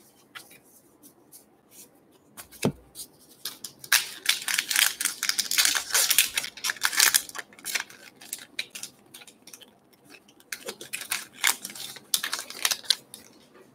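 A trading card pack wrapper being torn open and crinkled, a run of dense crackling a few seconds in, then a second burst near the end as the cards are slid out of the wrapper.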